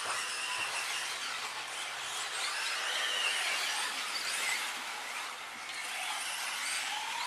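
Several 2WD off-road RC buggies racing on a dirt track: their motors give high-pitched whines that rise and fall and overlap as the cars speed up and slow down, over a steady hiss.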